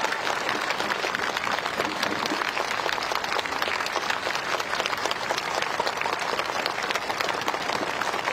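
Audience applauding: many hands clapping at once in a steady, even wash.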